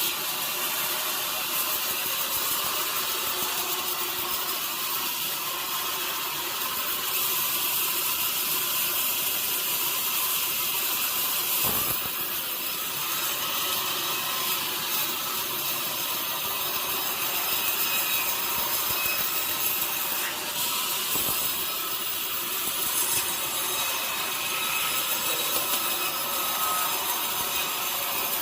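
Sawmill saw cutting through a large log, a steady, unbroken cutting noise.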